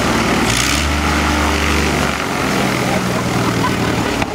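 Pitts Special S-2B biplane's six-cylinder Lycoming engine and propeller running as the plane taxis on grass. The sound swells deeper and louder about half a second in and settles back after about two seconds.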